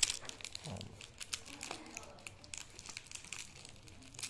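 Bubble-wrap packaging crinkling and crackling as a small pen box is worked out of it by hand, with a sharp click at the very start.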